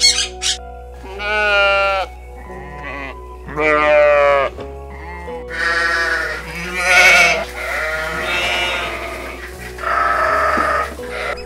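Sheep bleating about five times, each call about a second long with a wavering, quavering pitch, over background music.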